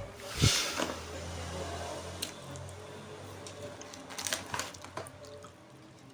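A single sharp thump about half a second in, then a low hum and scattered light clicks and rustling, like handling or scrabbling at objects.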